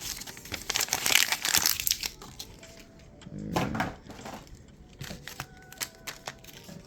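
Foil Pokémon booster pack wrapper crinkling as it is torn open and handled, with a run of light clicks near the end.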